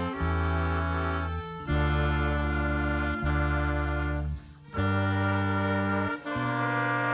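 Orchestra playing a slow passage of long held chords, each cut off cleanly and followed by the next about every one and a half seconds.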